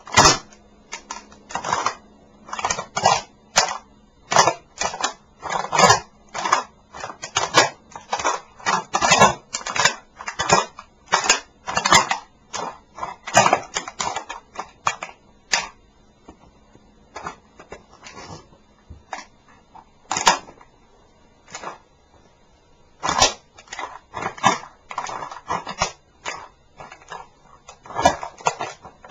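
Small model Leopard tank crunching and cracking under a sneaker's repeated stomps and grinding: a fast, irregular run of short cracks. They thin out a little past halfway, then come thick again near the end.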